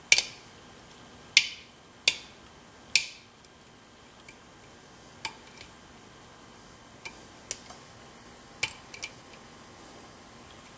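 Lock picking in an ASSA Twin cylinder: sharp metallic clicks of the pick and tension tool against the pins and plug, each with a brief ring. Four loud clicks come in the first three seconds, then fainter, sparser ones.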